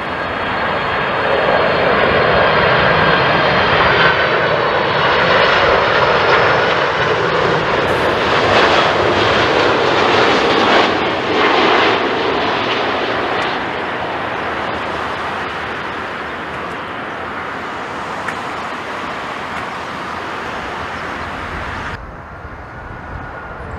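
Jet airliner engines passing close by, a dense noise that swells to its loudest over several seconds and then fades, with a faint high whine that sinks slightly in pitch as it goes.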